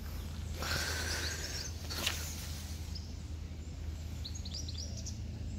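Outdoor ambience: birds chirping in short runs near the end over a steady low hum, with a brief rush of noise about a second in and a sharp click about two seconds in.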